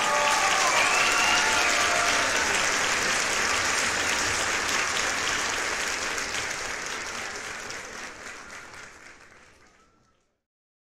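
Audience applauding, strongest in the first couple of seconds and then fading away to nothing over the last few seconds.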